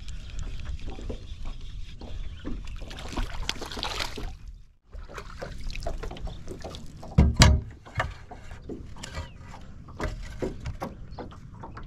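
Handling noises on a fishing boat's deck: small clicks and taps, then a blue plastic fish measuring board, wet from a dip over the side, is set down on the deck with two loud knocks a little past halfway. Earlier, a rushing swell of noise stops abruptly.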